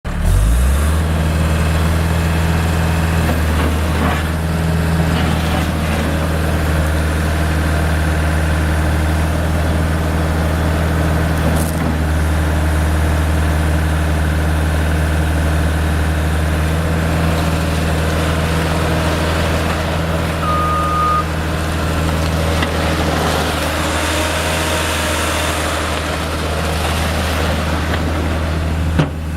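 Case 430 skid steer loader's diesel engine running steadily at a low, even idle. A single short beep sounds about two-thirds of the way through.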